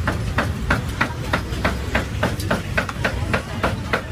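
Cleaver chopping roast meat in quick, steady strokes, about three to four a second.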